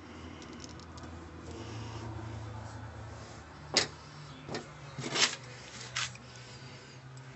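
Pliers and a handbrake cable's coiled spring clicking and scraping metal on metal as the spring is stretched: a handful of sharp clicks in the second half, the loudest about four seconds in. A low steady hum runs underneath.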